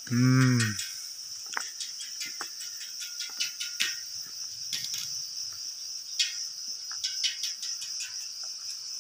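Steady high-pitched insect chorus of chirring crickets. A short low hum from a man's voice comes at the very start, and light clicks and ticks are scattered through it.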